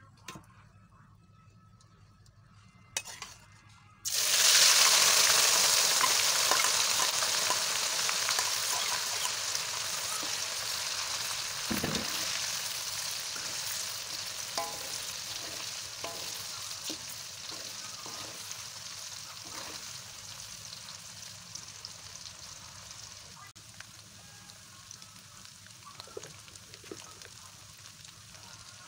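Hot oil in a wok bursts into a loud sizzle about four seconds in, as ingredients go into it. The sizzle slowly dies down while a spatula stirs, knocking and scraping now and then against the pan.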